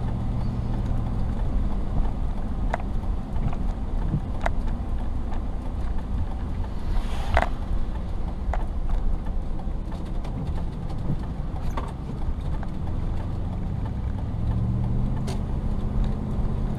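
Steady engine and road rumble heard from inside an RV's cab while driving, with a few scattered light clicks and knocks.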